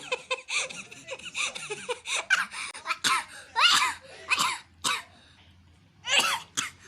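A high-pitched voice coughing in a long string of short, sharp bursts, with a pause about five seconds in before a last bout near the end.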